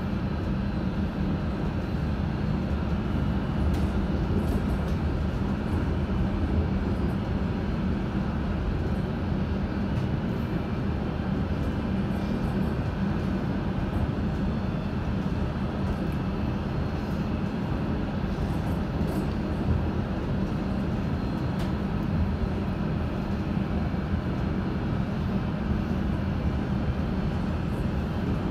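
London Underground S8 stock train running at speed, heard from inside the carriage: a steady low rumble with a few faint clicks.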